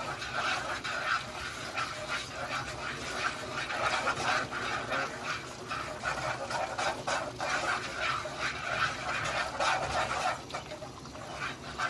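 Garlic butter sauce with Cajun seasoning sizzling and bubbling in a large nonstick pan, a steady crackle of small pops, while wooden chopsticks stir it.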